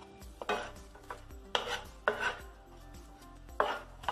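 Wooden spatula scraping and knocking against a nonstick frying pan while stirring whole spices in hot ghee, in about half a dozen irregular strokes.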